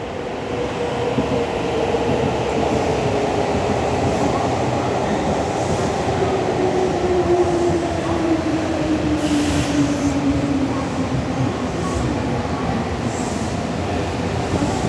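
Nankai 'Southern' electric train, 7100-series and 10000-series cars, running past close by. There is a steady rumble of wheels on rail and a motor whine that slowly falls in pitch. A few sharp wheel clicks and brief high squeals come in the second half.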